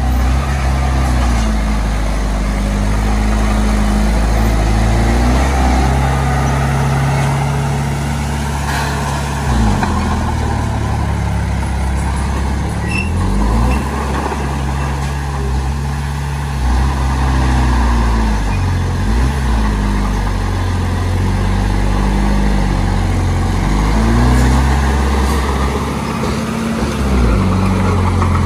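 Small bulldozer's diesel engine working under load as it pushes fill, its pitch sagging and picking up again several times.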